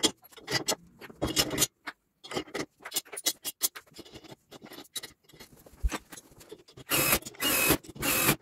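Steel bolts, washers and nuts clinking and tapping as they are fitted by hand through steel plow push tubes. About seven seconds in, a cordless drill runs in three short bursts, driving a bolt.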